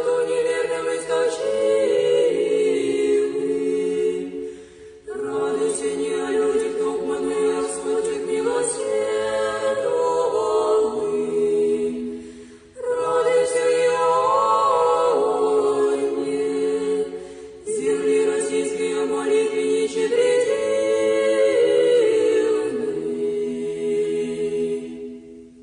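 Church choir singing Orthodox chant a cappella, in four long sustained phrases with brief breaths between them, fading out at the end.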